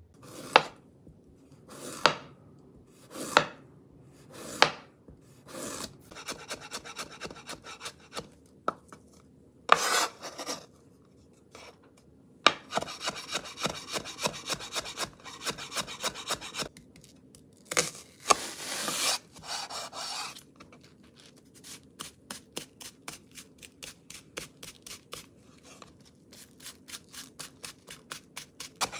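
Global stainless chef's knife cutting on an Epicurean wood-fibre cutting board: a few separate slicing strokes, then bursts of rapid chopping as ginger is cut into thin matchsticks. Near the end the knife slices a Japanese long onion in quick, even strokes.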